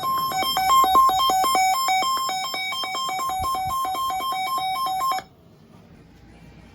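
Emergency alert attention tone: an electronic two-note warble switching between a lower and a higher tone about four times a second. It cuts off suddenly about five seconds in.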